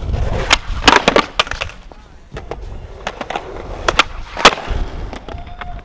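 Skateboard wheels rolling on concrete, broken by sharp wooden clacks of the board popping and slapping down as a skater throws flip tricks. There is a cluster of clacks in the first two seconds and one loud clack a little past the middle.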